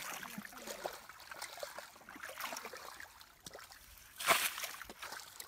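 Shallow muddy water sloshing and trickling as it is scooped with a plastic bucket, with a louder splash about four seconds in.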